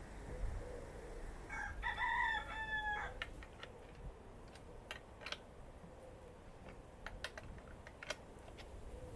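A rooster crows once in the background, a stepped call lasting about a second and a half. It is followed by a handful of light clicks and taps.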